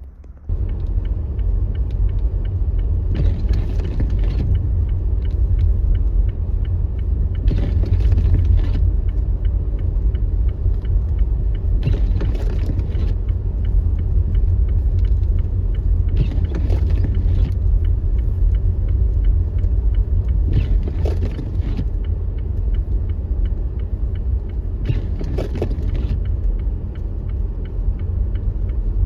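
Car driving on a snow-covered road, heard from inside the cabin: a steady low rumble of tyres and engine. A short swish comes about every four and a half seconds, as the windshield wipers sweep snow.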